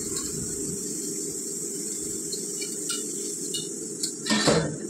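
Kitchen handling sounds over a steady low background hum: a few light taps, then one louder knock or clink near the end.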